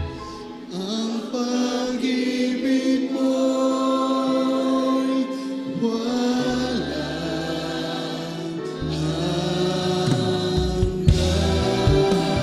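Choir and a male lead vocalist singing a slow Tagalog worship song in long held notes, over band accompaniment with a bass line. Sharp hits, likely drums, come in near the end.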